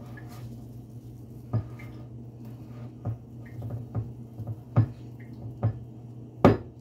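A spoon knocking against a glass mixing bowl while stirring thick dough: about six irregular knocks, the loudest near the end, over a steady low hum.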